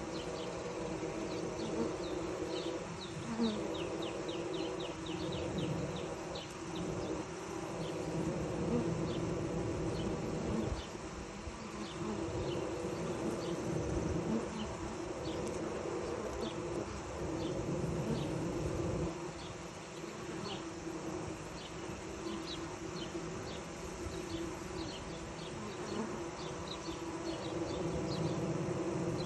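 Honeybees at a hive entrance fanning their wings to move air through the hive and cool it, making a steady buzzing hum. Short, high chirps are scattered over it.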